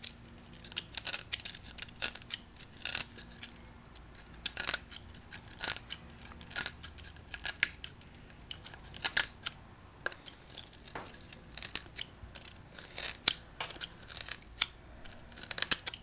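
Peel ply being torn off a cured carbon fiber tube by hand, giving short, irregular crackling rips as the fabric pulls away from the resin.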